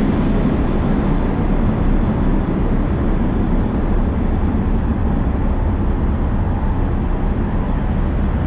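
Steady low engine rumble under a constant noisy wash, holding the same level throughout.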